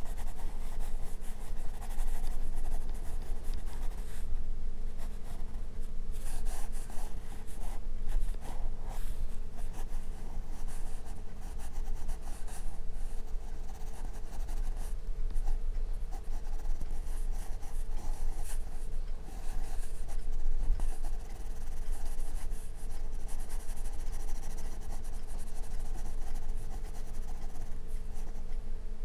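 Graphite pencil scratching across sketch paper in quick, repeated short strokes as it draws and shades. A steady low hum runs underneath.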